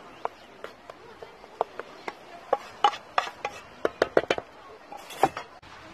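Wooden spoon scraping and knocking against a metal pot while bulgur pilaf is emptied from it into a metal tray: a string of sharp, irregular knocks, thickest from about two to four and a half seconds in.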